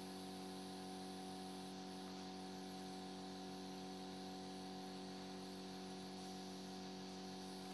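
Faint, steady electrical hum with a light hiss, unchanging throughout.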